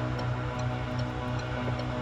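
Background music with a steady pulsing bass beat and light, regular ticking on top.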